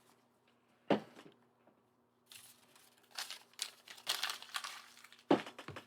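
Plastic parts bags from a building set crinkling as they are handled, with a sharp knock about a second in and another near the end.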